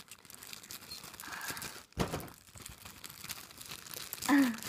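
Clear plastic packaging bags crinkling and rustling, with a sharp knock about two seconds in. Near the end comes a brief pitched vocal sound.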